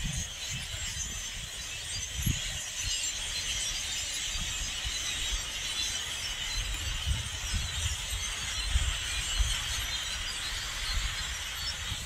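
A huge flock of blackbirds calling all at once: a dense, steady chorus of many high-pitched calls, with gusts of wind rumbling on the microphone.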